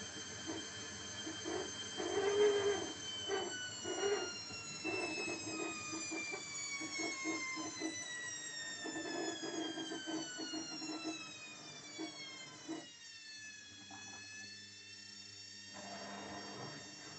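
Gorenje WHE74S3P washing machine squeaking, short squeaks repeating every second or two, over a high motor whine that falls slowly in pitch for about ten seconds and then levels off. The squeaks break off near the end while the whine carries on.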